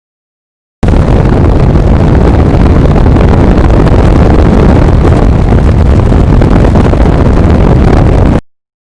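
Heavy wind buffeting the microphone on a moving motorcycle, a loud low rumble that starts abruptly about a second in and cuts off shortly before the end.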